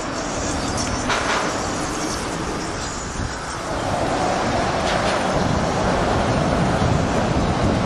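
Steady outdoor traffic noise, with a low rumble that swells from about halfway through.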